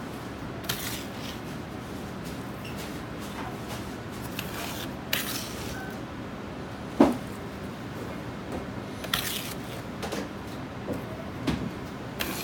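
Metal ladle scooping seasoned salt from a steel tray and tipping it into a mesh sieve over a stainless bowl: scattered gritty scrapes and light metal clinks, the sharpest knock about seven seconds in, over a steady background hum.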